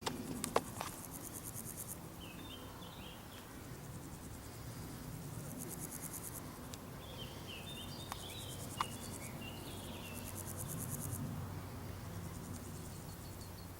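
Crickets or bush-crickets chirping in repeated bouts of rapid high pulses, each bout two to three seconds long. Birds chirp briefly twice, and a few sharp clicks come at the start and once about nine seconds in.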